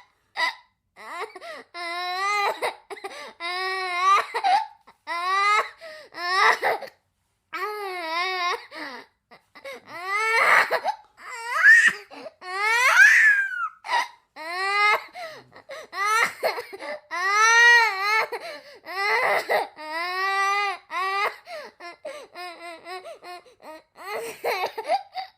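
A high-pitched cartoon character's voice crying: a string of short wavering, sobbing wails with gaps between them, the loudest and longest near the middle.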